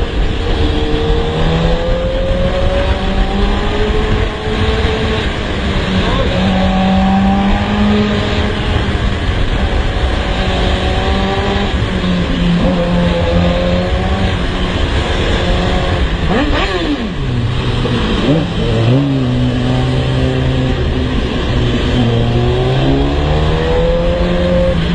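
Sport motorcycle engine running under way, its pitch slowly rising and falling with the throttle, over a steady rush of wind noise. About two-thirds of the way in, the revs dip sharply and climb again, then settle lower.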